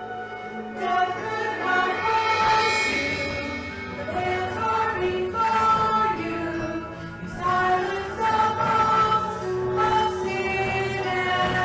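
Choir singing a slow melody in held notes over a sustained instrumental accompaniment.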